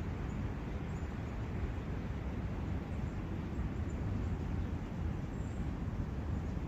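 Forest brook ambience: the steady, even rush of running water, heaviest in the low range, with a few faint, short high chirps.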